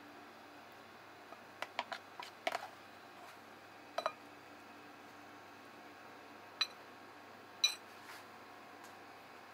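Scattered light clicks and clinks of tableware: a quick cluster about two seconds in, then single ones near four, six and a half and seven and a half seconds, a few ringing briefly, over a faint steady hiss.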